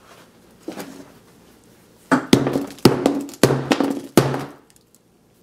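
A hammer striking a Samsung Galaxy S6 Edge lying on a hard table: a rapid run of about six heavy blows starting about two seconds in, each a sharp thud with a short low ring. The blows are bending the phone's body.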